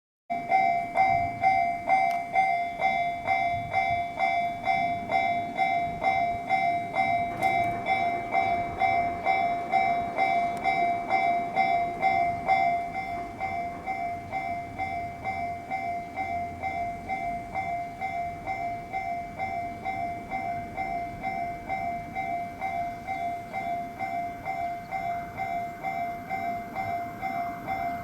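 Japanese level-crossing warning bell ringing, an even electronic ding repeating about twice a second. It gets quieter about 13 seconds in.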